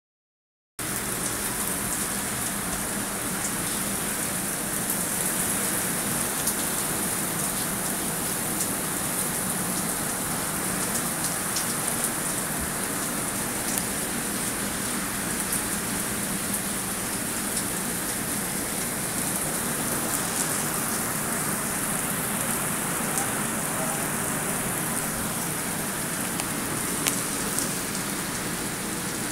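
Heavy rain falling steadily on gravel ground, an even hiss with scattered close drops ticking. It cuts in abruptly about a second in.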